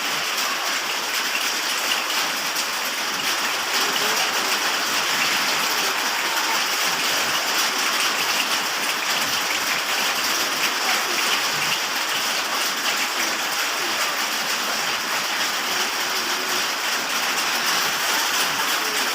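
Steady rain falling: a continuous, even hiss of water.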